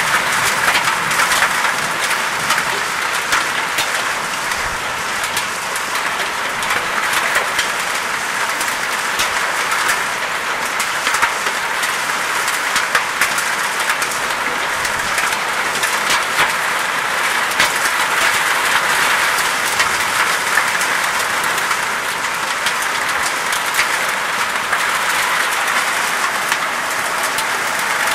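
Pea-sized hail and heavy rain falling, a dense steady hiss peppered with many small, sharp ticks of hailstones striking.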